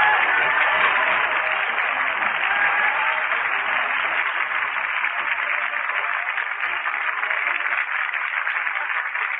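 Studio audience applauding steadily on an old radio broadcast recording.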